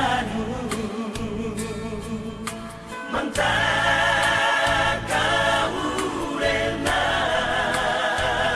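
Music with singing: held, wavering sung notes that become fuller and louder about three seconds in, as of several voices singing together.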